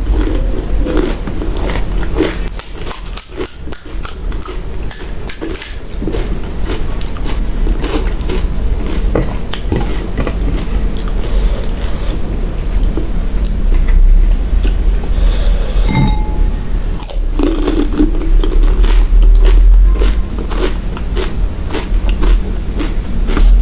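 Close-miked eating of pani puri: crisp puri shells crunching as they are bitten, then chewing, in many short crackles throughout, over a low steady hum.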